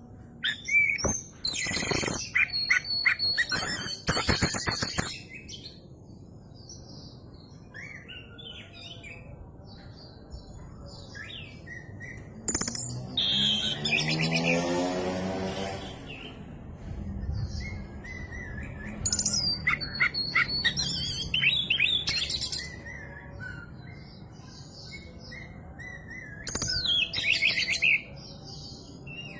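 Oriental magpie-robin (kacer) singing: loud bursts of rapid, high-pitched song a few seconds long, four times, with quieter scattered notes in the pauses. The song is filled with mimicked calls of other birds.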